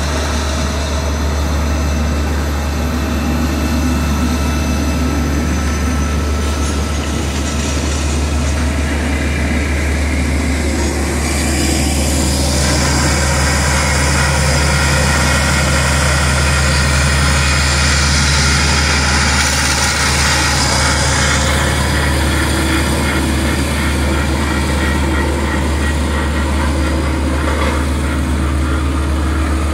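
Heavy diesel engines of asphalt paving machines running steadily, first an asphalt paver, then a Dynapac road roller. About twelve seconds in the sound changes and a hiss comes in for several seconds.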